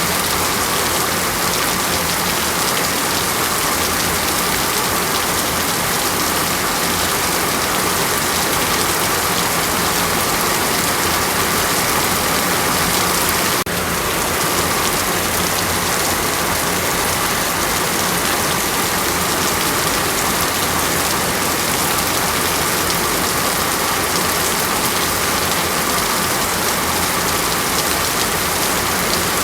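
Heavy rain falling steadily, a dense even hiss of drops on surfaces, with a brief slight dip in level about halfway through.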